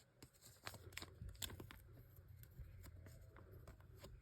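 Faint handling noise of trading cards and a plastic card sleeve: soft rustling with a few sharp little clicks, most of them in the first second and a half, over a low steady hum.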